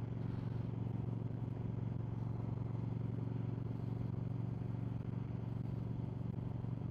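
Suzuki Marauder cruiser motorcycle engine running at a steady speed while riding, giving an even, unchanging low hum with no revving.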